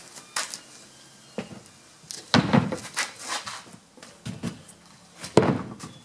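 A large OSB sheet set down on sawhorses and the OSB track-saw jig laid on top of it: a series of wooden knocks and scrapes, the loudest about two and a half seconds in and again near the end.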